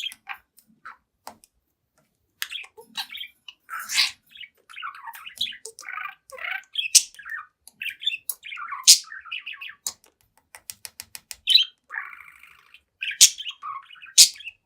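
Young budgerigar warbling and chattering: a few scattered clicks, then from about two seconds in a dense, rapid run of mixed chirps, sharp clicks and harsh buzzy notes, with a quick train of clicks near the middle.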